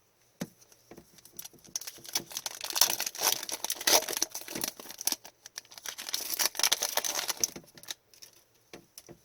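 Crinkling and tearing of a hockey trading card pack's wrapper, with the cards being handled: a dense run of crackling from about a second and a half in until near the end.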